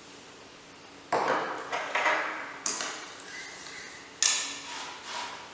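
A spoon stirring coarse sea salt and lemon juice in a ceramic bowl, clinking and scraping against the bowl about five times from a second in.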